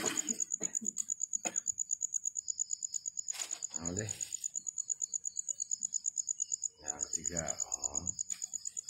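Insect chirping in a high, steady, fast-pulsing trill, with low voices murmuring briefly a few times.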